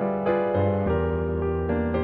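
Background music: a soft piano or electric piano playing a slow melody over sustained bass notes.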